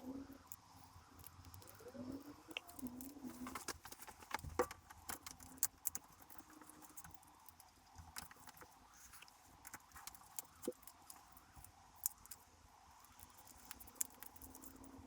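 Scattered light clicks and taps of small parts and hand tools being handled during the reassembly of a motorcycle's handlebar heated grips.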